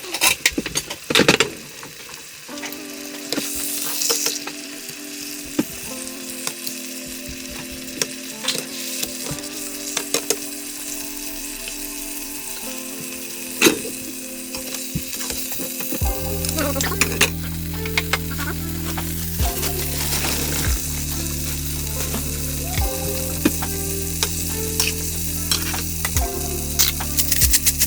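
Food frying and sizzling in a pan, with the clicks and scrapes of a utensil stirring it.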